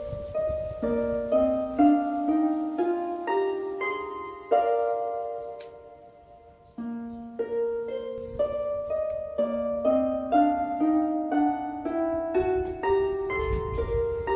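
Soft instrumental background music: a slow melody of single plucked or struck notes that ring and decay. It fades out about six seconds in, then starts again.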